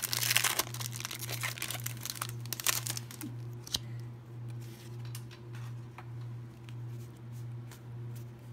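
Foil booster-pack wrapper crinkling and tearing as it is opened, densest in the first three seconds, then a few light clicks as the cards are handled. A low hum swells and fades steadily underneath.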